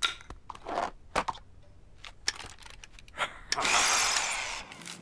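A few short clicks and knocks, then about three and a half seconds in a cordless power drill runs for about a second with a loud whirring.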